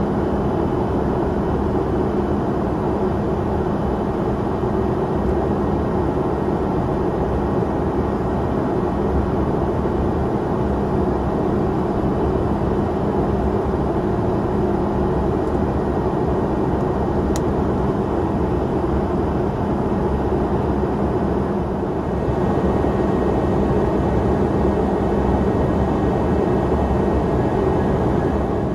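Steady cabin noise inside a Bombardier CRJ-700 regional jet in descent: a constant rush of airflow and jet engine noise with a low hum. A single faint tick sounds a little past the middle, and the noise grows slightly louder about three quarters of the way through.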